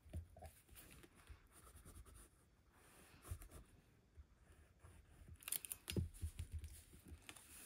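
Quiet paper-crafting handling sounds: a liquid glue bottle's tip faintly rubbing on paper, and card stock shifting under the fingers. There is a cluster of light knocks and rustles about five and a half seconds in.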